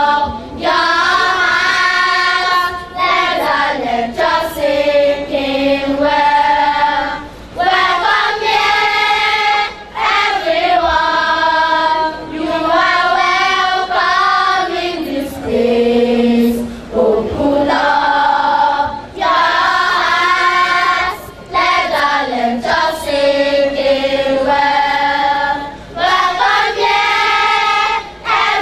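A choir singing, in held phrases of a few seconds each with short pauses between them.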